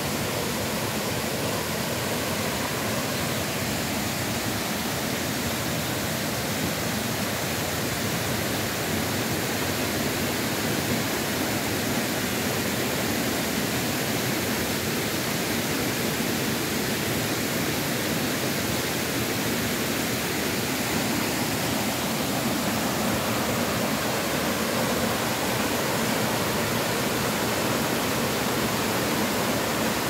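Steady rush of falling water from a waterfall and its rocky stream, growing slightly louder toward the end.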